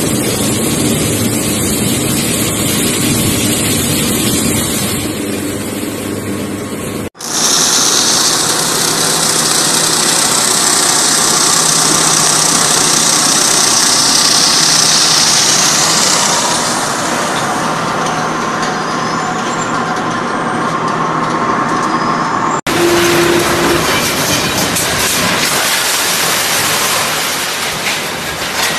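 Spiked-roller shredders grinding and crushing material, with a clear glass-like pane cracking and crunching as the rollers draw it in, over a steady grinding noise. The sound changes abruptly twice, about seven seconds in and again near the end, as it cuts to other shredding loads; a hiss is strongest in the middle stretch.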